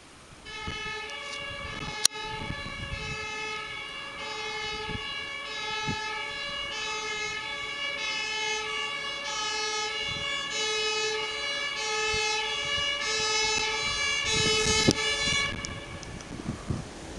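German ambulance two-tone siren (Martinshorn) swapping steadily between a low and a high tone. It grows louder as the ambulance approaches, then switches off shortly before the end. A sharp click about two seconds in, and another just before the siren stops.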